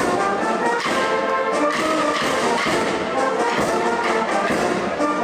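Brass band music playing a melody, with the notes changing steadily.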